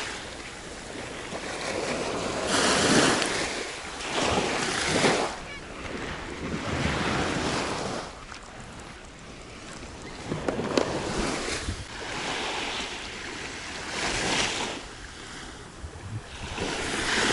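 Small waves breaking and washing up onto a sandy beach, the wash swelling and fading every few seconds, with some wind.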